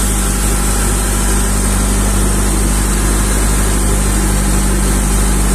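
A fishing boat's engine running steadily under way: an even low hum, over a steady hiss of wind and water rushing past.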